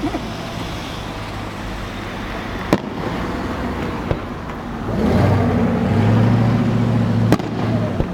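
Fireworks exploding overhead: three sharp booms spaced a few seconds apart, the middle one weaker, over a continuous rumble. From about halfway through, a steady low droning hum joins in and becomes the loudest sound.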